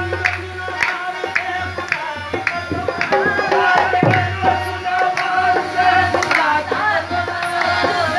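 Qawwali music: tabla and dholak drumming in a steady rhythm, with the dholak's deep bass strokes, over held harmonium notes.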